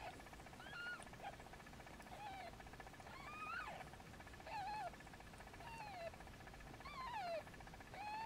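A cat mewing faintly: about eight short, high-pitched mews, roughly one a second, each bending up and down in pitch.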